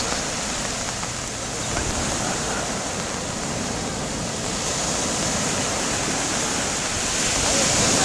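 Surf breaking and washing up a sandy beach, a steady rush of noise that swells near the end.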